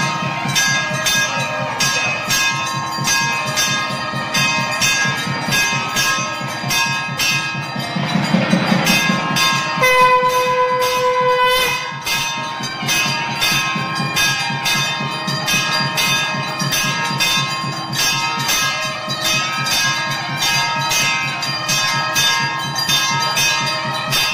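Temple bells rung continuously in quick, even strokes, about three a second, their ringing overlapping. For about two seconds near the middle, a steady held horn-like tone sounds over the bells.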